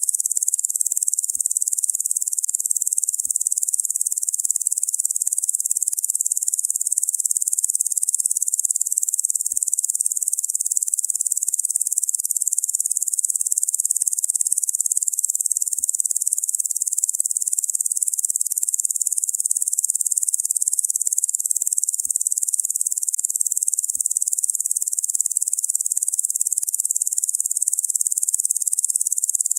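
Locusts buzzing in a dense, steady, high-pitched drone that never breaks.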